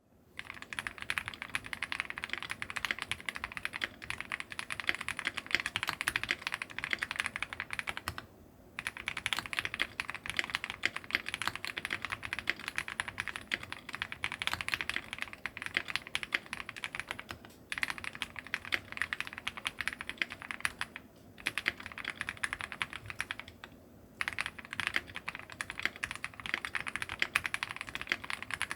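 Continuous fast typing on a Meletrix Zoom TKL EE mechanical keyboard with Thic Thock Marshmallow linear switches, a polycarbonate plate and GMK keycaps. The rapid keystrokes stop for brief pauses four times.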